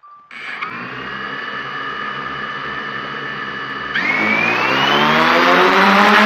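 A short beep, then the DJI F550 hexacopter's six electric motors and propellers start and spin at idle with a steady whine. About four seconds in they speed up to lift-off power, the whine rising in pitch and getting louder.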